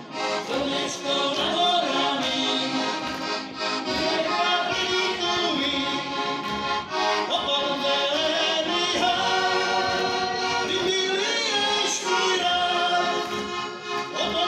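Several heligónkas, Slovak diatonic button accordions, playing a folk tune together.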